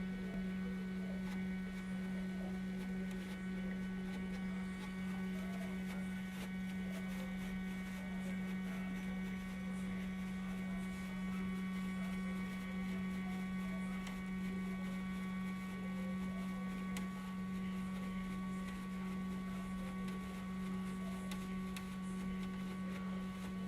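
Motor of a Hitachi RAS-WBK22H air conditioner's automatic filter-cleaning unit running, a steady even hum at one pitch while the unit moves.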